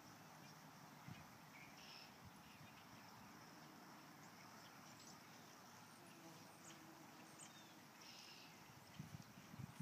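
Near silence: faint outdoor background hiss with a few faint, short, high chirps scattered through it, and a few soft low thumps near the end.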